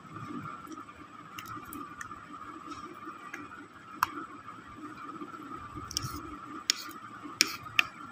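Metal spoon scooping through custard and clinking against the bowl: a handful of sharp clicks, most of them in the second half, over a steady background hum.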